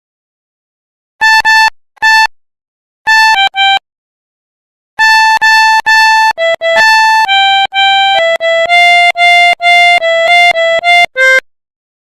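Pianika (melodica) playing the 'telolet' Basuri bus-horn melody: a few short notes about a second in, then a longer run of quick notes from about five seconds in, stopping shortly before the end.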